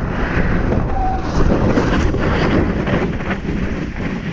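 Wind buffeting an action camera's microphone at speed down a ski slope, a steady heavy rushing, with the scrape of edges carving over packed snow coming through in short streaks.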